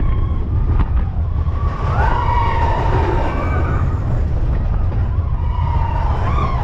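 Big Thunder Mountain Railroad mine-train roller coaster running along its track: a heavy rumble and wind rush on the onboard camera, with high wavering squeals over it about two to four seconds in and again near the end.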